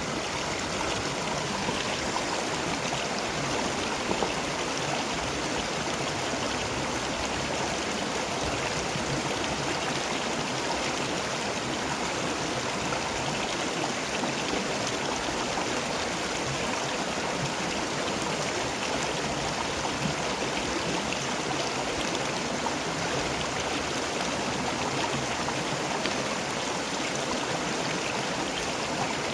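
River water rushing and splashing over stones, a steady even rush.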